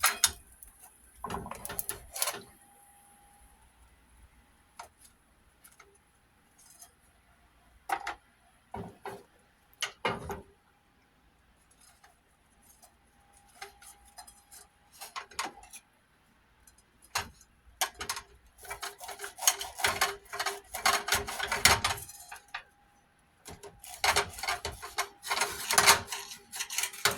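Kitchen utensils and dishes being handled: scattered clicks and knocks of metal on pan and plate, getting busier and denser in the second half.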